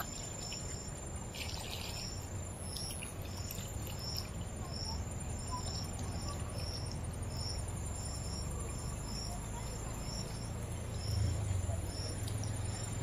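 An insect, likely a cricket, chirping in an even repeated rhythm of about two short, high chirps a second, over a low steady rumble.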